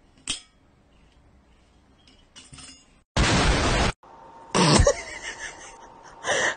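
A bottle clinks once as a cat paws at it. Then comes a loud burst of noise under a second long that starts and stops abruptly, followed by a jumble of short sounds.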